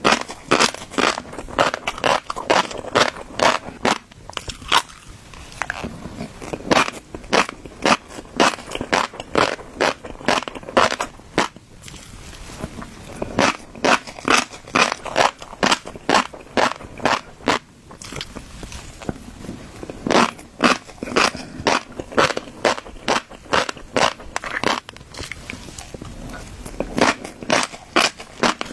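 Close-miked chewing of fish roe: the eggs pop and crackle in quick runs of sharp clicks, broken by short pauses.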